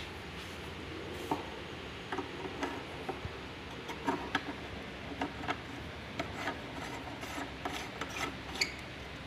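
Black iron pipe fitting being screwed by hand onto a threaded pipe end through a wooden shelf plank: irregular metal-on-metal scraping with small clicks from the threads, starting about a second in.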